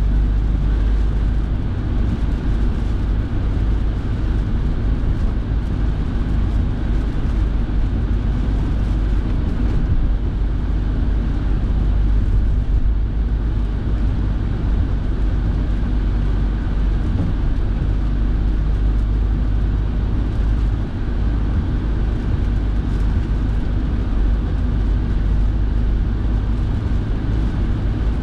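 Steady drone inside a moving car's cabin: engine and tyre noise on a wet road, with the car's heater fan blowing.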